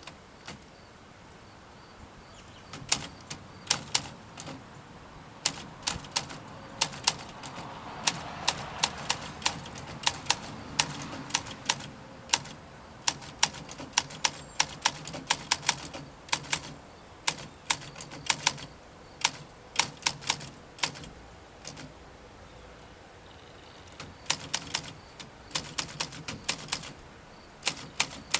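Olympia SM9 portable manual typewriter being typed on: sharp key strikes in irregular runs, starting about three seconds in, with a short lull near the end before the typing resumes.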